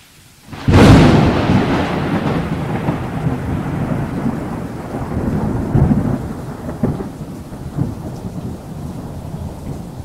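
Logo-intro sound effect: a sudden loud crash just under a second in, then a long low rumble with scattered crackles that slowly fades, like a thunderclap.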